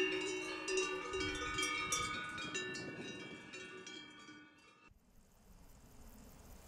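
Several cowbells on grazing cows clanking and ringing at different pitches, fading gradually, then cut off abruptly about five seconds in, leaving near silence.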